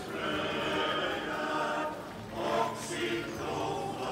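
A choir singing in held chords, with a brief break about two seconds in before the next phrase begins.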